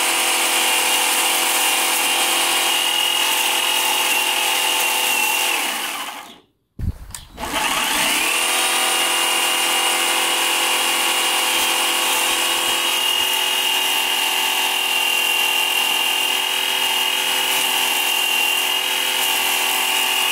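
Einhell cordless electric chainsaw running at speed with a steady high whine while its chain cuts through pineapple leaves. About five and a half seconds in the motor winds down and stops, then spins back up about a second and a half later and runs steadily again.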